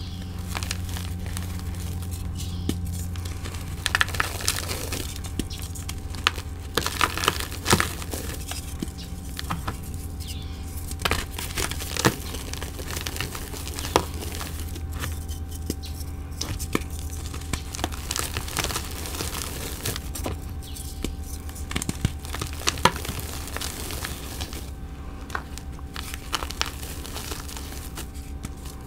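Gym chalk being crushed and crumbled by hand: irregular crunchy crackles and crumbles of powdery chalk, with a low steady hum underneath.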